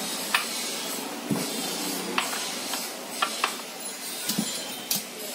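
Hand tools and metal parts of a demolition hammer being handled on a workbench: about nine irregular light clicks and metal clinks over a steady background hiss.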